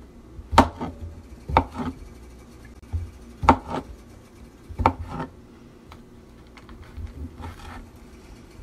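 Knife chopping on a cutting board: about five separate knocks at uneven intervals, with fainter ones near the end.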